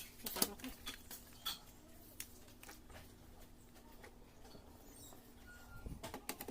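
Scattered light clicks and taps of an SSD caddy and laptop parts being handled, with a quicker run of clicks near the end, over a faint steady hum.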